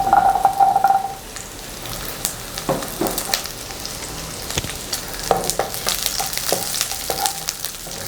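Garlic cloves and small onions frying in sesame oil, sizzling steadily, with a spoon stirring and scraping against the pan in scattered clicks.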